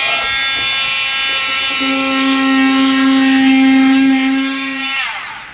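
Dremel oscillating multi-tool running at a steady high whine while cutting along the edge of a plexiglass aircraft canopy, with a louder low buzz joining in the middle for about three seconds. Near the end the tool is switched off and its pitch falls as it winds down.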